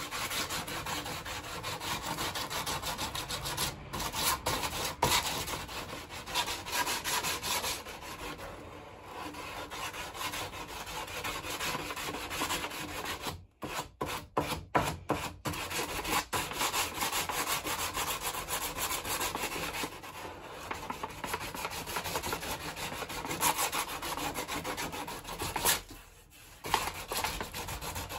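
Sandpaper rubbed back and forth by hand over the corner of a wooden worktop in fast, steady strokes, rounding it into a curved edge. The strokes stop briefly a few times about halfway through, and again near the end.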